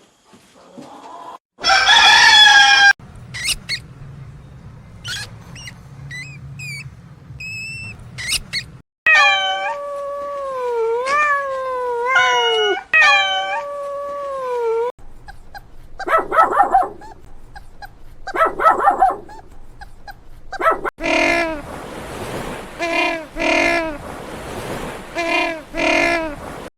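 A string of animal calls, mostly a dog whining and howling in long cries that waver up and down. Near the end comes a run of about five short, evenly spaced calls.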